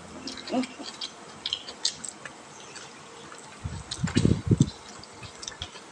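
Small clinks and clicks of spoons and forks on plates during a meal, with quiet chewing. About four seconds in, a brief cluster of low thuds, the loudest sound.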